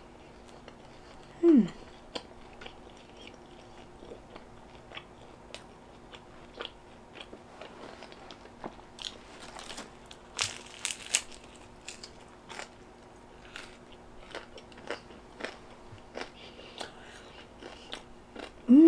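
Close-up crunching and chewing of a crispy fried pizza crust: many short crackling crunches, the loudest as a bite is taken about ten seconds in. A brief falling "mm" from the eater about a second and a half in.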